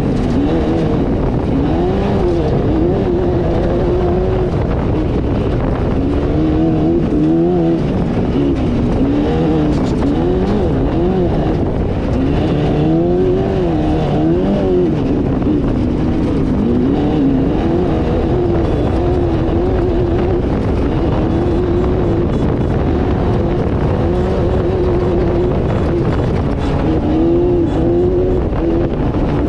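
Off-road race car's engine running hard, its pitch climbing and dropping every second or two with throttle and gear changes as it is driven flat out over rough ground.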